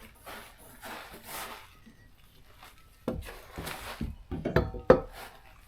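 A wooden shelf board and its hardware being handled against the wall: a soft scraping, then a quick irregular run of wooden knocks and clunks, the loudest one near the end.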